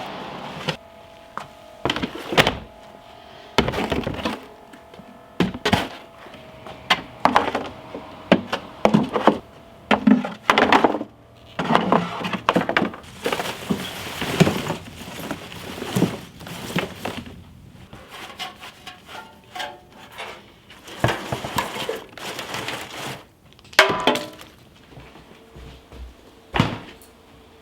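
Irregular knocks, clatters and clinks of hard objects being handled, dozens of separate strikes, some with a glassy ring.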